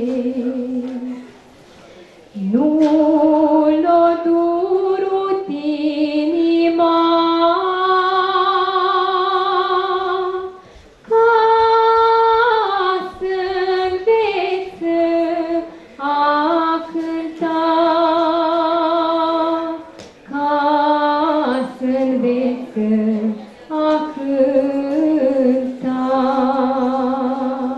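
A teenage girl singing a slow Romanian folk song unaccompanied, holding long notes with wide vibrato in phrases separated by brief pauses for breath.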